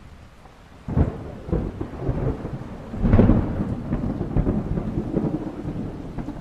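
Thunderstorm: a sudden thunder crack about a second in, then a louder rumble of thunder from about three seconds in that slowly fades, over steady rain.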